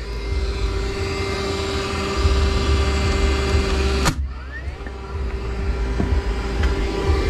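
A Craftsman cordless 21-degree framing nailer fires once, about four seconds in, with a sharp crack and then a brief rising whine as it resets. A steady hum runs before and after the shot.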